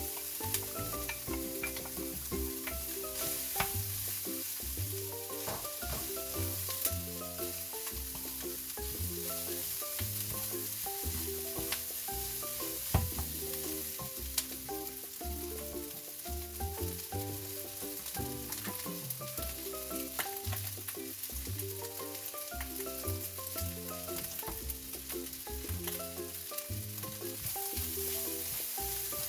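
Rice and diced bacon sizzling as they are stir-fried in a nonstick frying pan, with a wooden spatula scraping and knocking against the pan a few times. Background music with a steady melody plays underneath.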